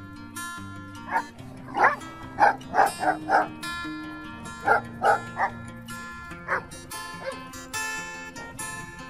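German Shepherd-type dogs barking in short sharp yaps at play: a quick run of barks from about a second in, a few more around five seconds, and a single bark near the middle, over background guitar music.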